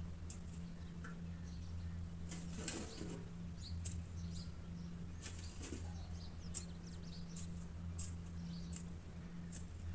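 Faint outdoor garden ambience: birds chirping briefly here and there over a steady low hum, with scattered sharp clicks.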